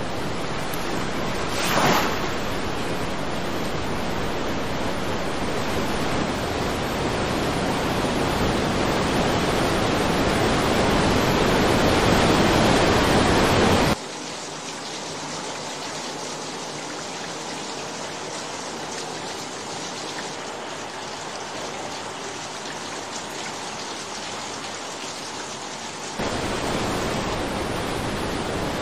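Rushing floodwater and heavy rain: a steady, dense water noise that slowly grows louder. It cuts abruptly to a quieter, thinner hiss about halfway through and comes back louder near the end. A brief louder burst sounds about two seconds in.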